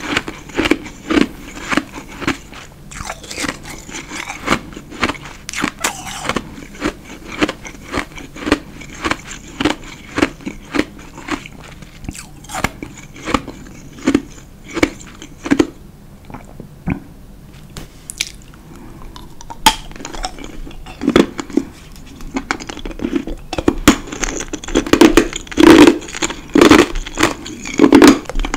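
Close-miked chewing and crunching of ice in the mouth, a steady run of crunches about two a second. After a short lull past the middle the crunches come back louder and denser.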